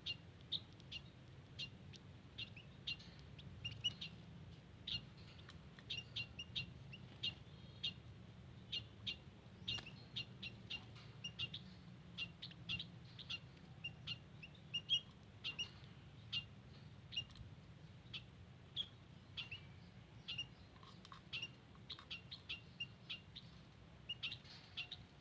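White-headed munias (emprit haji) calling: a long run of short, high chirps, irregular and often several a second, over a faint steady low hum.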